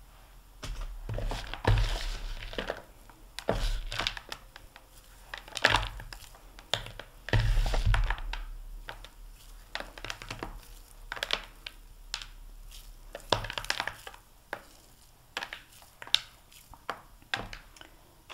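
Hands scraping up crumbly pecan pie ball mixture in a large mixing bowl and pressing and rolling it into a ball: irregular crunching and rustling with scattered clicks and a few soft knocks.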